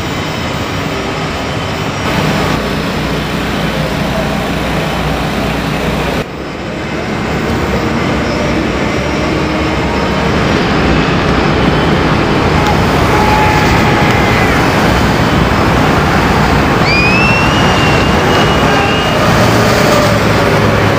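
Loud, steady vehicle engine noise at a race track, with an abrupt cut and brief drop in level about six seconds in.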